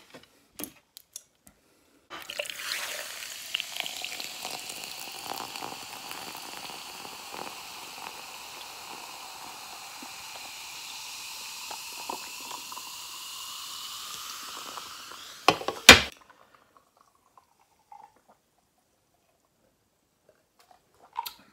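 Diet ginger ale poured from a can into a glass jar of ice, fizzing, with the pitch of the pour rising as the jar fills for about thirteen seconds. A few small clicks come before it and a loud knock right after it ends.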